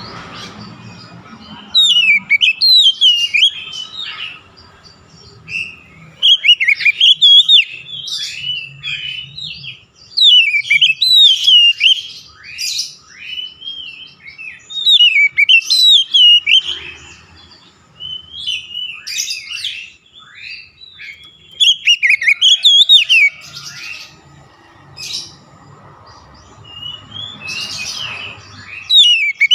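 Oriental magpie-robin singing in about seven loud bursts of varied whistled phrases, with notes sweeping up and down and quick rising notes, separated by short pauses.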